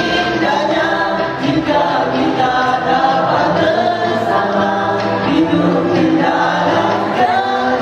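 A male vocal group singing a nasyid song together into microphones, several voices in harmony.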